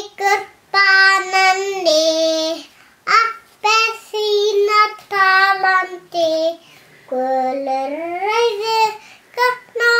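A two-and-a-half-year-old child singing solo: a string of held, high notes in short phrases with brief pauses for breath, the voice sliding upward in pitch a little past the middle.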